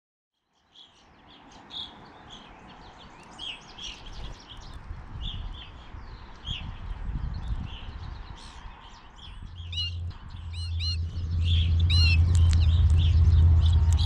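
Wild finches (evening grosbeaks, purple finches and American goldfinches) giving many short chirps, some as quick falling notes, around a hand feeder. A low steady rumble comes in about ten seconds in and grows to be the loudest sound.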